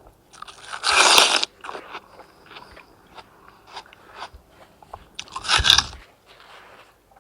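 Two crunchy bites into a sandwich of untoasted white bread and fresh watermelon, one about a second in and another near the end, with quieter chewing in between.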